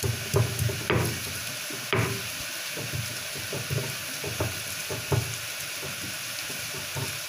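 Stone pestle grinding and pounding pale chopped pieces in a stone mortar: irregular scraping of stone on stone with a few sharper knocks, the loudest about one and two seconds in.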